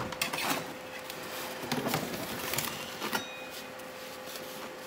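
A metal spatula scraping and knocking against the wire rack of a countertop air fryer oven as a baked pizza is slid out. There is a faint steady hum underneath.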